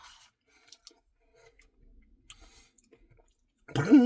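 Faint scattered clicks and mouth sounds of a man eating ice cream, then near the end a short held vocal note from him.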